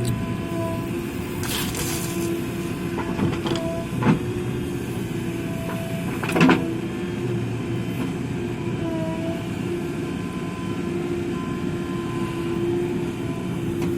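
JCB backhoe loader's diesel engine running with a steady hum, with a few sharp metallic clanks, the loudest about six seconds in.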